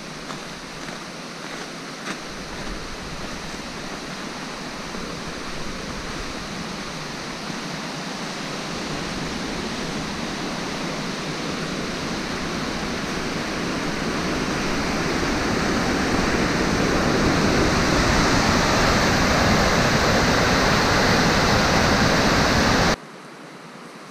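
Rushing river rapids: a steady rush of white water that grows louder, then cuts off abruptly near the end, leaving only a faint hiss.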